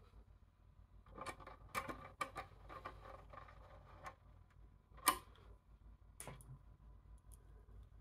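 Faint clicks and light rattles of the metal drive caddy and small screws being handled inside an open HP EliteDesk 800 G3 Mini. A cluster of small clicks comes over a few seconds, then a sharper click about five seconds in and another about a second later.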